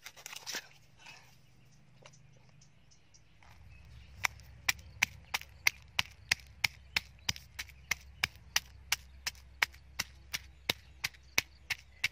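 Stone pestle pounding red chilies and garlic in a stone mortar: sharp, regular strikes about three times a second, starting about four seconds in. Near the start, a brief scrape of a cleaver cutting through a fish on a wooden board.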